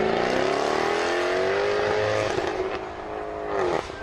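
Jaguar F-Type Project 7's supercharged V8 accelerating hard away, its exhaust note climbing steadily in pitch. It eases off about two seconds in, rises briefly again, then drops sharply near the end as it shifts up.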